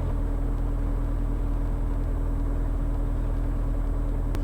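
Piston engine of a Diamond light airplane running steadily at low taxi power, heard from inside the cockpit as an even low drone. A faint click comes near the end.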